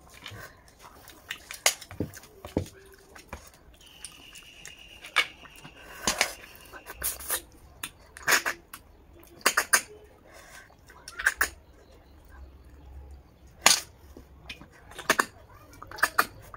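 Snail-eating sounds: a string of sharp, short clicks and slurps a second or two apart as cooked snails are picked and sucked from their shells by hand.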